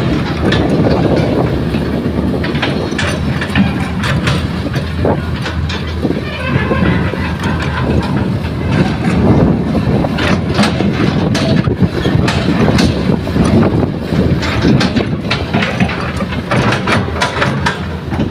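A Kobelco excavator's diesel engine running under load while loading soil into a dump truck, with repeated irregular clanks and knocks from the bucket and falling earth.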